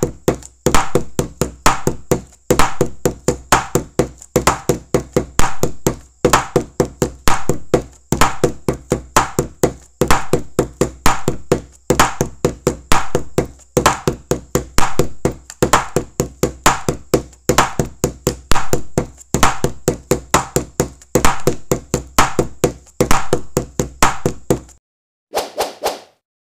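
Background music with a fast, percussive knocking beat that repeats in a regular loop. It stops abruptly near the end after one short final burst.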